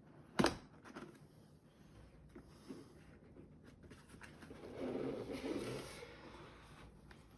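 Cardboard packaging being handled and opened: a sharp snap about half a second in, then scattered light ticks and a stretch of rustling and rubbing about two-thirds of the way through.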